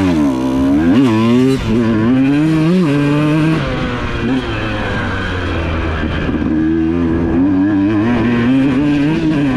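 Husqvarna TC125 two-stroke motocross engine under way. It revs up and drops back several times in quick succession in the first few seconds, like shifting up through the gears, then holds a fairly steady throttle with small rises and falls.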